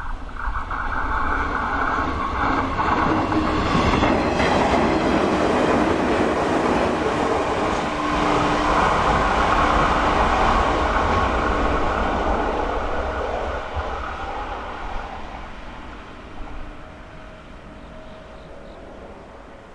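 A Shinano Railway 115 series electric train passes at speed. The running noise swells, holds at its loudest for several seconds, then dies away over the last few seconds.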